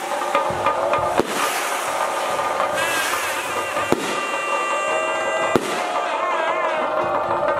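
Chenda drums played in a dense, continuous roll for a theyyam dance, with a wavering melody line over them from about three seconds in. Three sharp cracks stand out, about one, four and five and a half seconds in.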